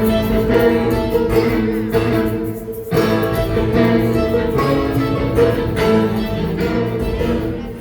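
Live band playing an instrumental passage with sustained, layered notes and no singing; the music thins briefly and comes back in strongly about three seconds in.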